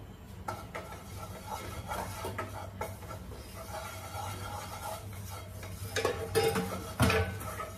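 Wooden spatula scraping and tapping around a non-stick frying pan as ghee and flour are stirred together over a low flame, the start of a roux for white sauce. There is a sharper knock about seven seconds in.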